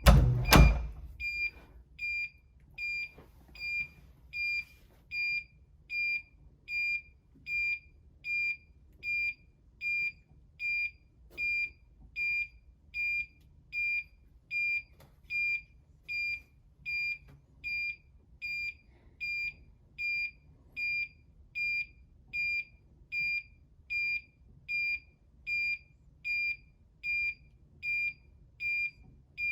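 RBH SafeSuite alarm keypad beeping during the exit delay after being armed Away: a single high steady tone repeating evenly, about one and a half beeps a second. A louder knock just after the start.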